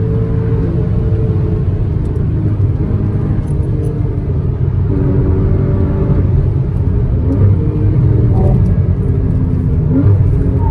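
Porsche Cayman S (981) 3.4-litre flat-six engine running hard under load, a loud low rumble holding a mostly steady pitch, with brief rises in pitch about seven and ten seconds in.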